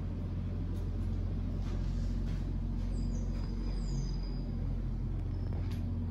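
A steady low rumble, with a few faint taps and two short high falling chirps about three seconds in.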